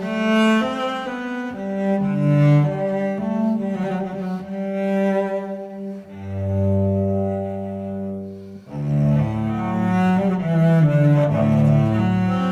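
Music of low bowed strings playing a melody of changing notes, with one long held low note about halfway through before a new phrase begins.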